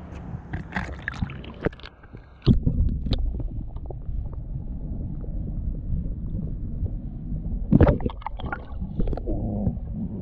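Water splashing, then a camera plunged underwater about two and a half seconds in: the sound turns to a muffled low rumble and gurgle as heard by a submerged microphone. A louder splash or knock comes about eight seconds in.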